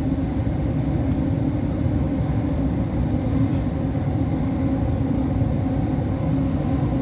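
Doha Metro train running, heard from inside the carriage: a steady rumble with a low hum held throughout.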